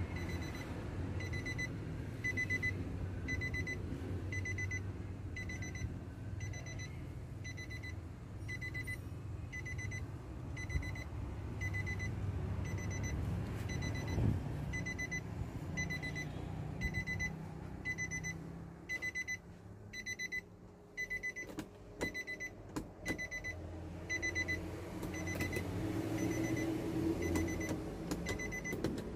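A pickup's cabin warning chime beeping repeatedly and evenly, about three beeps every two seconds, over a low steady hum, with a few light clicks near the end.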